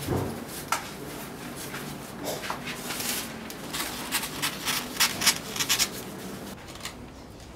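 Scissors cutting through a large sheet of paper: a run of crisp snips and paper rustle from about two seconds in, loudest near the middle, stopping shortly before the end. A single knock at the very start.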